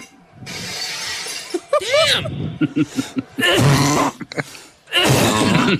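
Sound-effect clips of glass smashing and things breaking, mixed with rowdy shouting, in several loud noisy bursts with short gaps between them.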